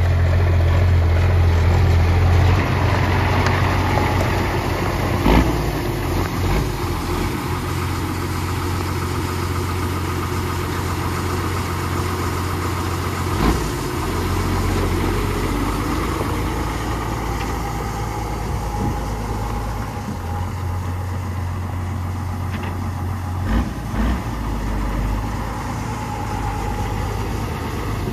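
AM General M35A2C 2½-ton 6x6 military truck's multifuel diesel engine running at low speed as the truck drives slowly, a steady low drone, with a few sharp knocks.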